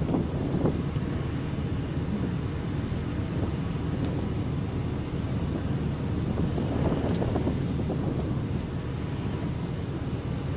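Steady low rumbling background noise outdoors, with a couple of faint knocks near the start.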